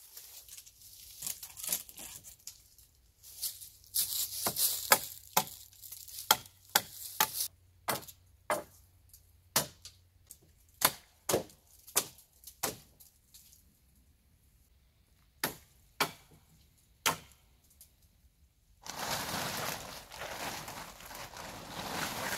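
An axe chopping sharp branch stubs off the wooden roof poles: a long series of separate sharp wooden strikes, one or two a second, with a short pause before the last few. Near the end a tarp rustles as it is pulled up onto the pole roof.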